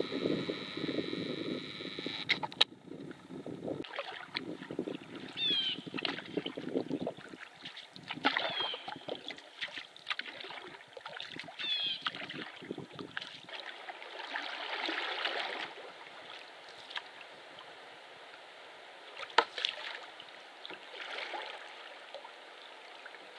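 Canoe paddling: irregular paddle strokes and splashes with dripping water, the sound changing abruptly a couple of times.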